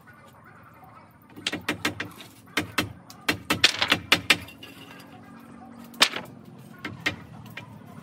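Hammer driving nails into wooden roof battens: quick runs of sharp strikes, about three or four a second, starting about a second and a half in, then a single strike about six seconds in and a few more near the end.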